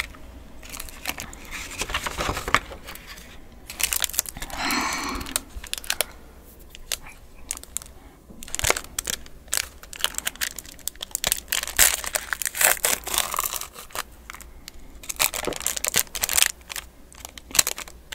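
Foil snack pouch crinkling and crackling in the hands as it is pulled at and torn open, with stretches of paper rustling.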